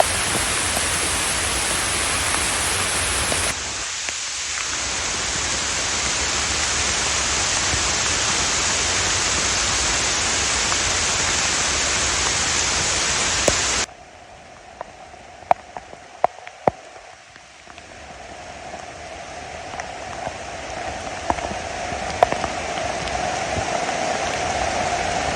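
Rain falling in a steady hiss. About 14 seconds in it cuts abruptly to a much quieter, lighter patter with separate drips clicking out, which then slowly builds back up.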